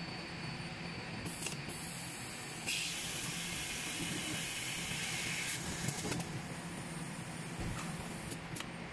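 Pouch-cell assembly machine running with a steady low hum, and a hiss of compressed air from its pneumatics about three seconds in that lasts around three seconds. There are shorter puffs of air near the start and near the end.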